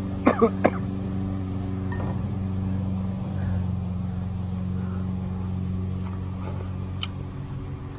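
Steady low hum, with a few short sharp sounds in the first second and scattered light clinks of utensils against a bowl later on.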